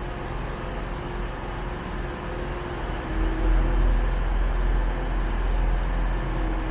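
Class 158 diesel multiple unit's engines idling at the platform: a steady low rumble with faint steady tones that grows louder about three seconds in.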